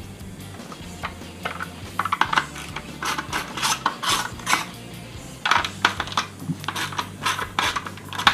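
Quick clusters of small clicks and clinks as screws are taken out and the C5 Corvette's climate control module housing is taken apart, over a steady low hum.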